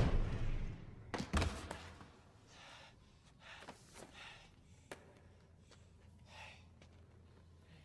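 Film sound effects. A whoosh fades out at the start, a few thuds land about a second in, and then come quiet, short breathy sounds like gasps.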